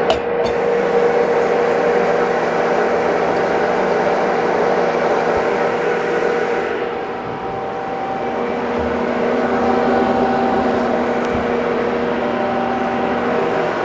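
Steady mechanical hum and whir of running shop machinery, with a short clink right at the start.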